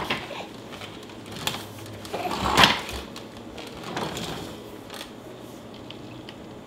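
Irregular clicks and clatter of hard plastic as an infant handles the toys on a baby walker's tray, the loudest knock about two and a half seconds in.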